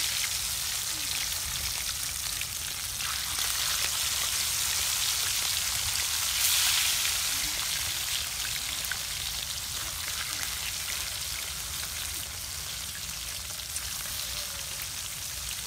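Small whole fish frying in hot oil in a steel wok: a steady crackling sizzle that swells louder about six seconds in, then eases.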